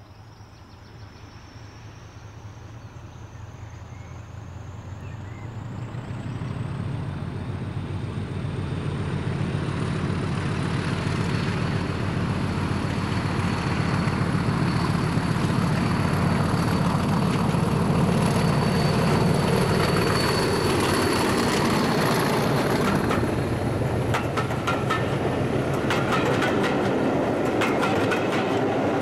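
English Electric Class 40 diesel locomotive's 16-cylinder engine running under power as it approaches and passes, growing steadily louder over the first ten seconds, with a high whistle above it that rises in pitch. In the last few seconds the coaches' wheels clatter over the rail joints as the train rolls by.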